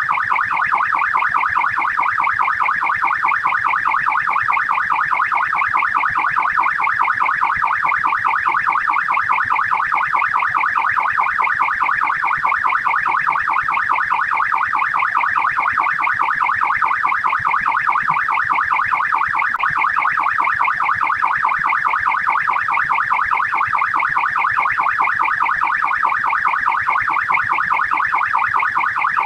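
Australian police siren on fast yelp: a rapid, steady up-and-down wail that repeats over and over without change.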